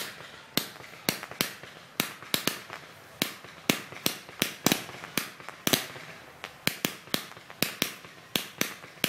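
Fireworks bursting in a rapid, irregular series of sharp bangs, about two to three a second, with a short echo after each.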